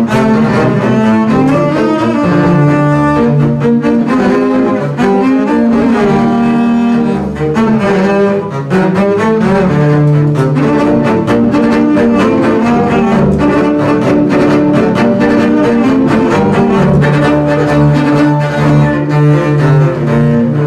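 Double bass quartet, four basses bowed together, playing a Spanish pasodoble arrangement: long held low notes under a line of short, rhythmic bow strokes.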